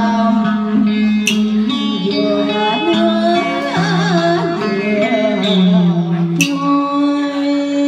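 A woman singing a Vietnamese đờn ca tài tử song into a microphone, holding long notes with wavering pitch and sliding between them, accompanied by a plucked guitar.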